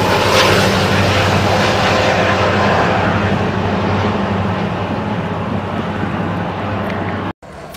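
BNSF train rolling past, a steady rumble with a low drone, slowly fading as it draws away; the sound cuts off abruptly near the end.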